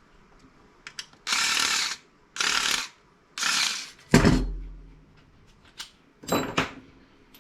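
Power drill-driver backing out screws in three short bursts of about half a second each. Then a loud knock with a low rumble, and a second knock that rings briefly like metal.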